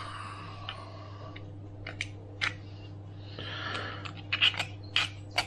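Light clicks and taps of kitchen handling at a saucepan while eggshell fragments are picked out of the yolks. A few are scattered early on, and they come more often after about four seconds, over a steady low hum.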